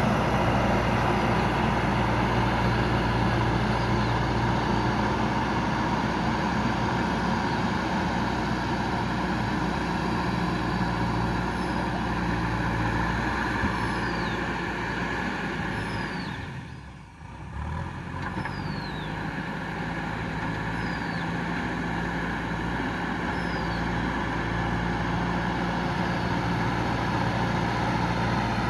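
Diesel engine of a JCB 3DX backhoe loader running steadily under work. It dips briefly about two-thirds of the way through, then settles back. A few short, high, falling chirps sound over it.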